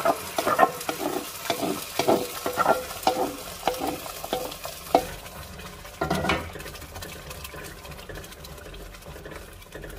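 A wooden spoon scraping thick mole chili puree out of a metal bowl into a hot pot, with many irregular scrapes and knocks over the sizzle of the puree hitting the pot. From about six seconds in the spoon stirs the sauce in the pot, more quietly.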